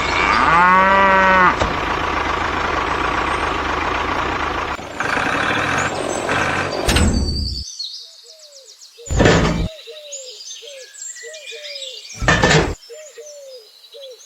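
A long pitched call that rises and falls at the start, then a steady noisy rumble for several seconds, then a run of short repeated chirps broken by two brief loud bursts.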